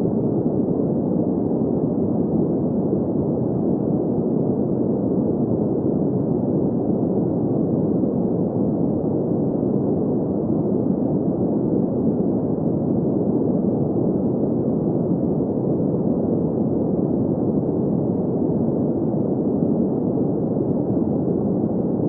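Steady green noise for sleep: an even, unchanging hiss concentrated in the low-middle range, with nothing above it.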